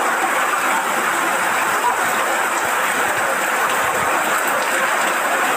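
Fast-flowing floodwater rushing along a street, a steady, even rushing noise.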